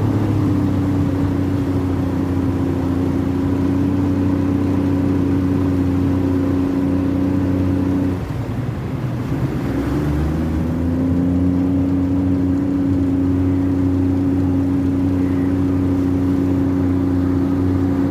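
An engine running at a steady speed. It eases off about eight seconds in, its pitch falling, then picks back up about two seconds later and holds steady again.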